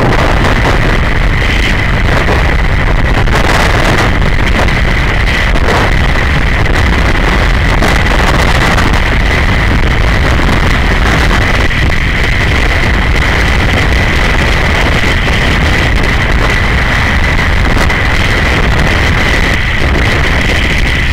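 Onboard sound of a BMW G 650 GS Sertao's single-cylinder engine running steadily at road speed, mixed with wind rushing over the microphone, with a steady high whine over it.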